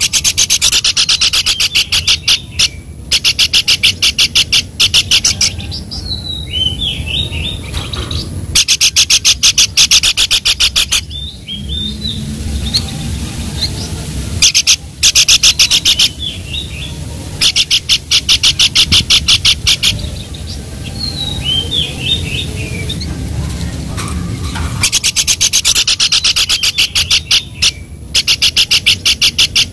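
Pelanduk babbler calling: bursts of a fast, even chattering rattle lasting two to four seconds each, repeated six times, with short high down-slurred notes in the gaps between.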